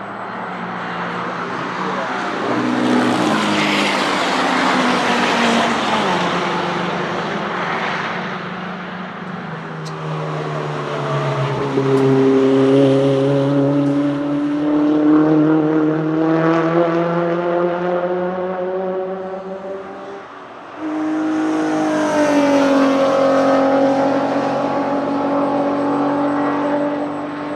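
Track-day cars driving past at speed, one after another, their engines pulling hard with the pitch climbing through the gears. About twenty seconds in the sound drops away briefly before the next car comes through loud.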